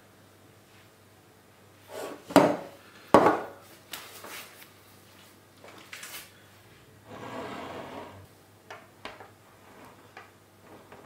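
Kitchen handling noises: two sharp knocks a little over two seconds in, a scattering of lighter clicks, and a short rub or scrape about two-thirds of the way through.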